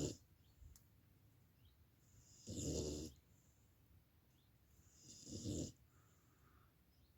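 A sleeping dog snoring with slow, even breaths: a rasping snore about every two and a half seconds, with a faint hiss between them.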